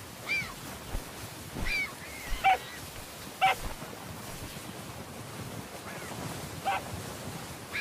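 Short animal calls, about seven in all, each a brief arched note, mostly spaced about a second apart with a gap of about two seconds in the middle, over a steady rushing background.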